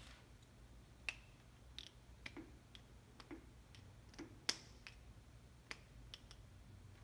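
Geiger counter clicking at irregular, random intervals, about a dozen sharp ticks. Each tick is one particle detected from a strontium-90 beta source.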